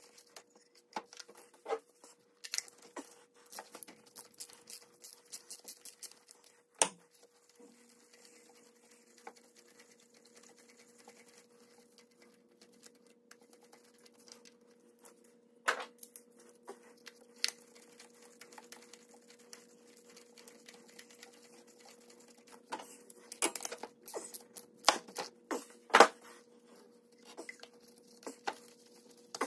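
Scattered clicks, taps and rattles of a socket and extension being worked on an engine's ignition coil bolts and spark plugs, with runs of quick clicking early on and again near the end. A faint steady hum comes in about eight seconds in.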